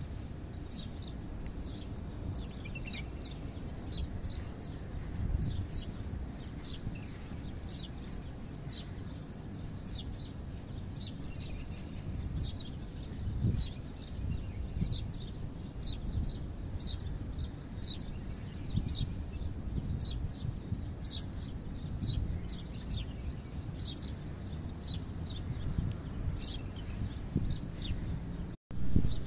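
A bird chirping over and over: short, falling chirps about two a second, over a steady low rumble. Near the end the sound cuts out for an instant, then a louder thump.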